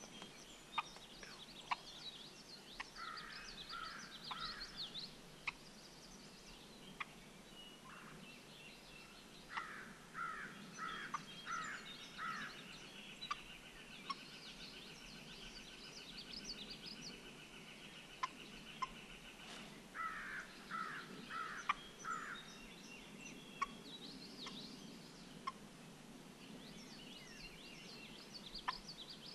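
Wild turkey calling in short runs of four to six notes, repeated several times, with songbirds chipping and a long rapid trill in the middle.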